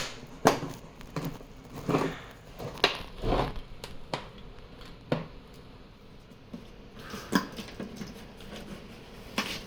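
Scattered clicks, knocks and short scrapes of a plastic headlight housing and lens being handled and pried apart, about ten sharp strokes at uneven gaps.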